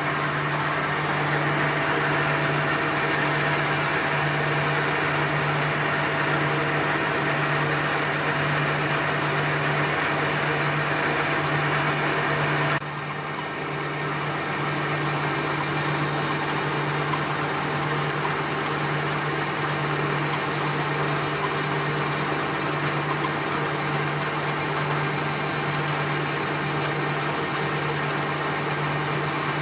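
Machine-shop machinery running steadily with a strong low hum and a noisy whir. About thirteen seconds in, the sound drops suddenly, and slightly quieter machinery keeps running.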